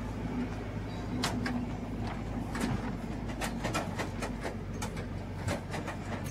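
A pickup truck's engine runs with a steady low hum. From about a second in, its load of empty plastic harvest crates clatters and knocks irregularly.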